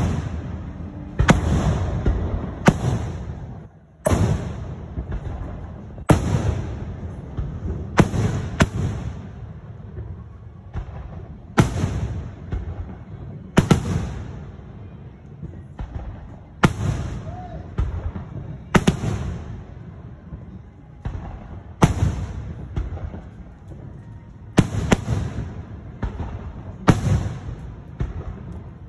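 Aerial fireworks shells bursting overhead: a sharp bang about every one to two seconds, each followed by a rolling, echoing rumble.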